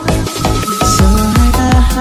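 Fast electronic dance music with a heavy kick drum and a synth melody. The kick drops out at the start and comes back about half a second in.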